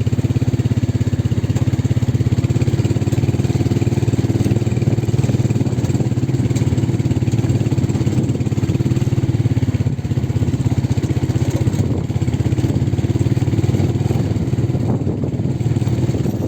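A vehicle's engine running steadily with a low hum and a fast, even pulse, heard while travelling along a road.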